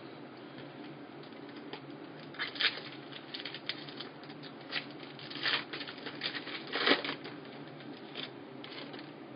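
Football trading cards being handled and flipped through by hand: irregular soft scrapes and flicking clicks, with a few louder ones about two and a half, five and a half and seven seconds in, over a steady low hum.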